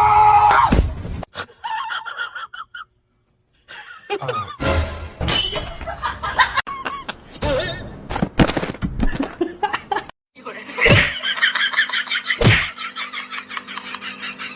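A run of short clips: music with some laughter, then two sharp knocks near the end over a steady tone.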